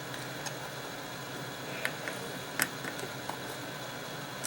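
Steady background hum with a few faint, short clicks of a small hand tool working on a backlight LED strip's circuit board, around two to three seconds in.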